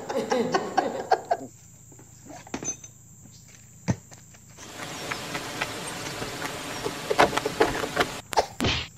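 A voice briefly at the start. After a quiet stretch with a single click, a few seconds of close rustling and handling noise, ending in two sharper scrapes, as the angler settles into a crouch at the water's edge with his fishing rod.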